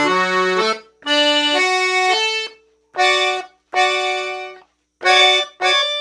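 Accordion playing an arpeggio within D major, in short sustained phrases broken by brief pauses, with quicker detached notes near the end.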